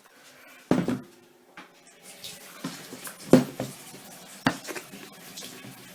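Water running from a tap, starting about two seconds in, with three sharp knocks of dishes; the loudest is a little past three seconds in.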